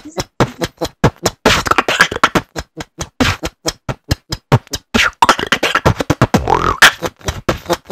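Human beatboxing into a close microphone: a fast run of mouth-made kick, snare and click sounds, with a short rising pitched sound about six and a half seconds in.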